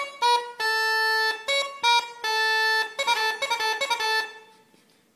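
Uilleann pipes chanter playing a short phrase of held notes broken by quick triplet ornaments, with a fast flurry of short notes about three seconds in before it stops.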